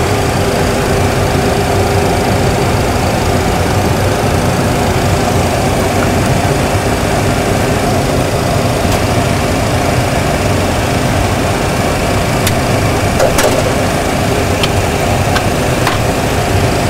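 Steady mechanical hum with a few low tones in a Boeing 737 Classic cockpit, with the engines already shut down. A few short clicks come in the second half.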